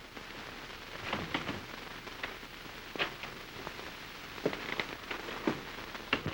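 Steady hiss of an early sound-film soundtrack, with scattered light clicks and knocks every second or so.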